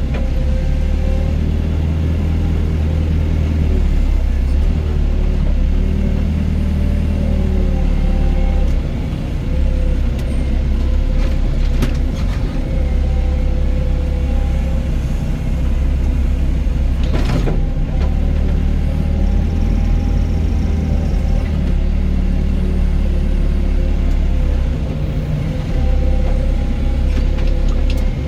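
Doosan DX55 mini excavator's diesel engine running under working load, its note rising and falling as the hydraulics work. Two sharp knocks come through, one about twelve seconds in and a louder one about five seconds later.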